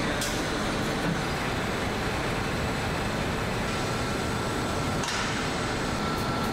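Steady machinery noise of a ceramic tile production line running: belt conveyors and rollers carrying tiles. A faint high whine joins it a little past halfway.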